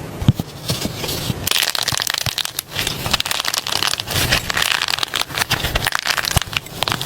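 Slime being squished and worked, giving dense, irregular crackling and popping clicks.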